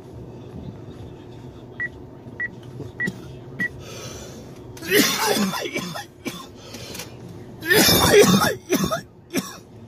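A man coughing hard in two fits, about three seconds apart, with a few short coughs after the second. Earlier, four short high beeps sound evenly, a little over half a second apart.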